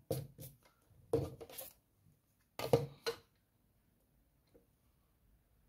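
Rubber eraser scrubbing on drawing paper, and plastic drafting tools being set down and shifted on the drawing board: a run of short scrubs and knocks in the first second and a half, and two more sharp clacks a little before three seconds in.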